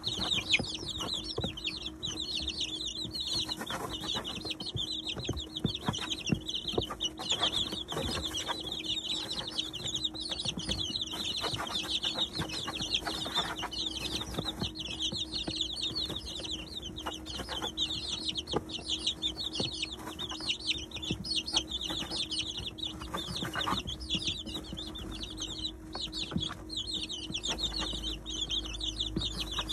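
A brooder full of 19-day-old chicks peeping without pause, many high, short chirps overlapping, with scattered ticks of beaks pecking at feed and a steady low hum underneath.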